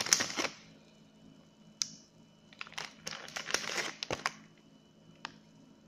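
Plastic crinkling and crackling in short bursts: a burst at the start, a single crackle just under two seconds in, a longer run of crackles a little after that, and one last click near the end.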